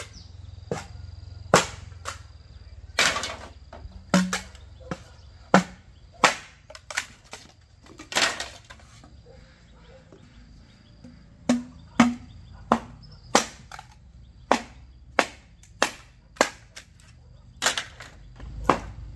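Irregular series of sharp, hard strikes of a tool on bamboo, roughly one a second, a few of them longer and rasping.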